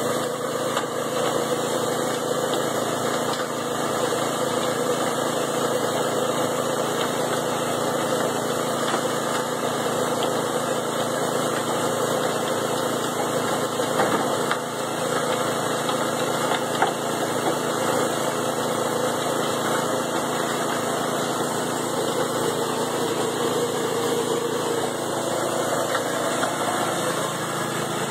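Vintage Jaeger cement mixer's engine running steadily, turning the drum, with a couple of brief clanks about halfway through.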